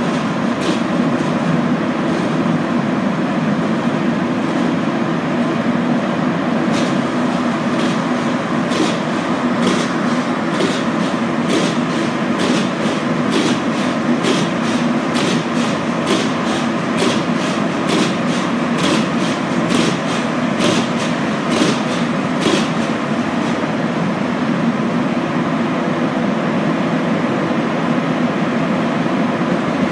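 Montreal metro Azur (MPM-10) rubber-tyred train running at speed through a tunnel, heard from inside the car: a steady rolling rumble and motor hum. Through the middle stretch, a run of sharp clicks comes about one to two a second.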